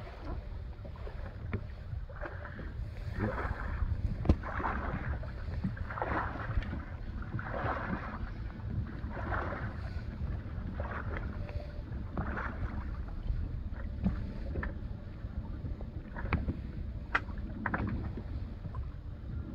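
Wind buffeting the microphone on a small boat, with water slapping against the hull every second or so and a few sharp knocks, the loudest about four seconds in and others near the end.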